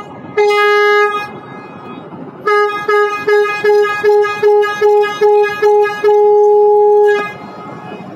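Ship's horn sounding: one blast of about a second, then about nine short toots in quick succession ending in a longer blast of just over a second.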